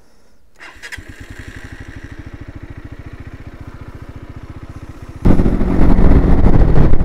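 Lexmoto cruiser motorcycle started on its electric starter: a brief crank about half a second in, then the engine catches and idles with an even, rapid beat. About five seconds in, the sound jumps abruptly to the much louder engine and wind noise of the bike being ridden.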